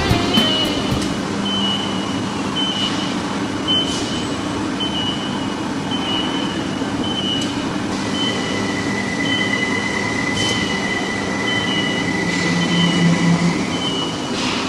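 CNC vertical milling machine cutting pockets: a steady machining noise from the spindle and end mill, with a short high squeal repeating about once a second and a longer high whine from about eight seconds in to near the end.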